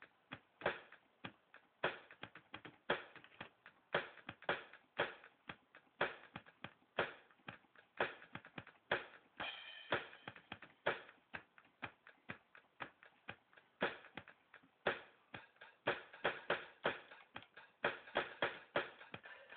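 Drum kit played in a repeating beat: loud hits about once a second with lighter strokes between them, and a cymbal ringing out about halfway through.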